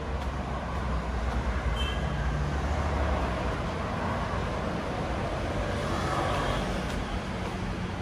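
Motor traffic passing with a steady low rumble that swells twice, with a brief high squeal about two seconds in.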